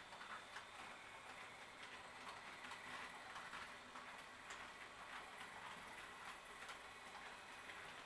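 HO-scale Roco model train (the RRF 4401 locomotive with coaches) running over track and turnouts, heard as faint irregular clicking of wheels over rail joints.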